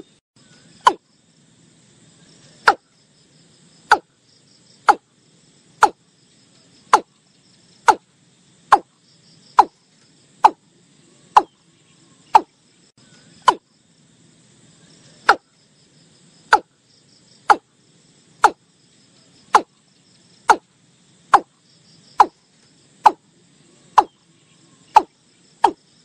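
Watercock calling: a long, steady series of short, sharp clucking notes, about one a second, each dropping quickly in pitch. A faint steady buzz of insects runs underneath.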